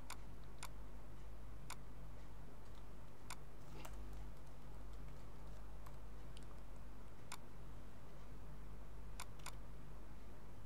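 Computer mouse clicking: single sharp clicks every second or so, with a quick pair near the end, over a steady low electrical hum.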